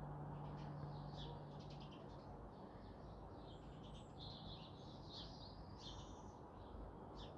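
Faint chirping and twittering of small birds, many short calls, over a low background rumble; a steady low hum fades out about two seconds in.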